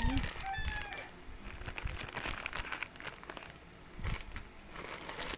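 Plastic snack packaging crinkling as it is handled, with a few soft knocks as packs are set down.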